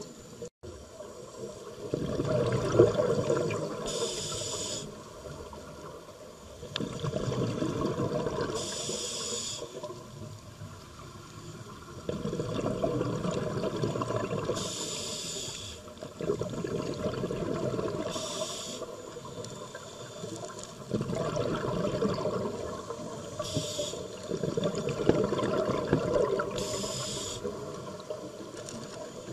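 A scuba diver breathing underwater through a regulator: a short hissing inhale, then a longer burst of bubbling exhaled air. The cycle repeats steadily about every five seconds, six breaths in all.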